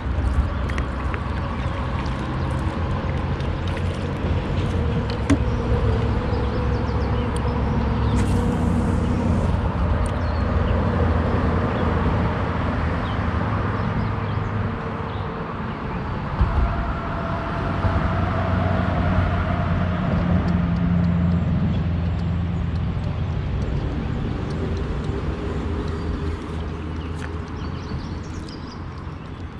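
An engine running steadily, its pitch drifting up and down slightly.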